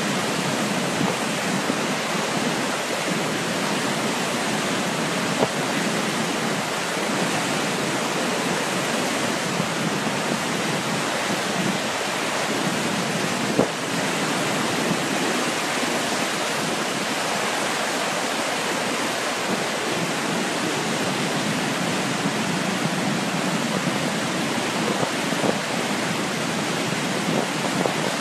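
Floodwater of a river in spate churning through the boil below a dam's outflow: a loud, steady rush of turbulent water.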